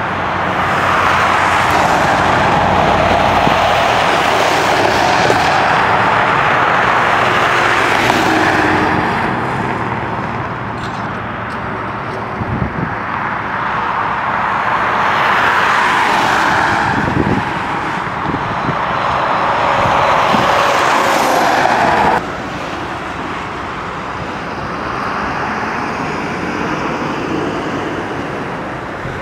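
Road traffic passing on a highway, cars swelling and fading in turn. The sound cuts off abruptly about two-thirds of the way through, then steadier, quieter traffic noise continues.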